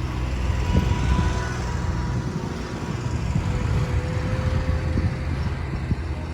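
Disney Skyliner gondola lift running: a steady low rumble with irregular knocks and faint thin tones over it.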